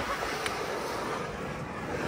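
A Ram TRX pickup towing a caravan at speed: steady wind and road noise at a camera fixed to the outside of the truck, with one short click about half a second in.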